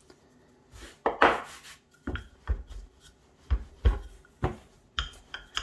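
Wooden rolling pin worked back and forth over pastry dough on a plastic board: a swishing rub about a second in, then a run of dull knocks about twice a second as the pin rolls and bumps on the board.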